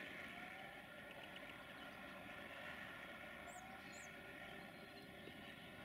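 Faint outdoor ambience: a steady distant hum, with two brief high bird chirps about three and a half and four seconds in.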